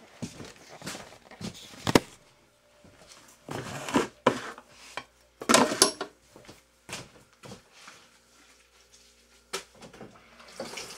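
Kitchen clatter: dishes and cans knocked and set down on a counter, a scatter of sharp knocks with short bursts of rattling, the sharpest knock about two seconds in.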